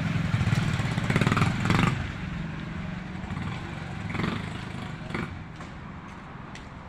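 A small engine running with a rapid pulsing beat, dying away about two seconds in, followed by a few light knocks.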